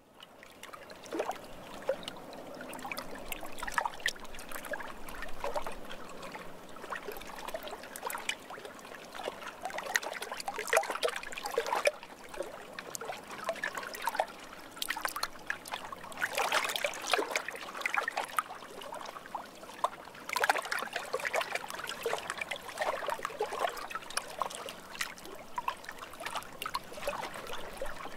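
Water trickling and splashing gently in small irregular bursts, busier in stretches.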